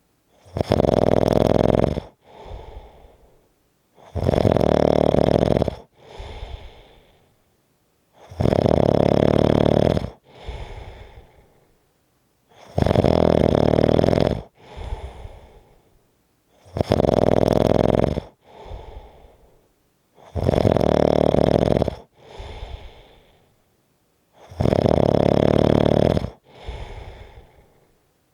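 Rhythmic snoring: a loud snore about two seconds long repeats about every four seconds, seven times, each followed by a softer, fading breath.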